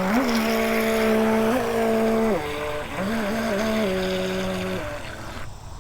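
Remote-control racing boat's motor whining as it drives across the water, its pitch stepping up and down with the throttle several times; the motor cuts off near the end.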